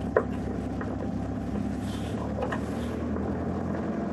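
Steady low hum of a car's engine and tyres heard from inside the cabin while driving slowly on a snow-covered road. There is a light click just after the start.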